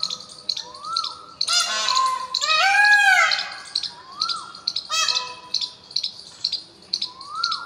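Birds calling: short high chirps repeating about twice a second, a few rising whistled notes, and one louder, longer arching call about two seconds in.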